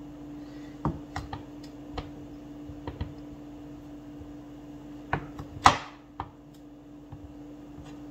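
Chef's knife cutting through a block of cheese and knocking down onto a wooden cutting board: a scattering of sharp taps, the loudest a little under six seconds in. A steady low hum runs underneath.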